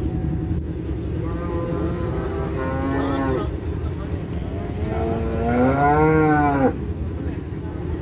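Cow mooing twice: two long calls with a short gap between them, the second louder, its pitch rising and then falling.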